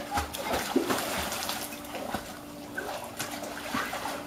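Pool water splashing and sloshing in a run of irregular short splashes as a dog paddles through it.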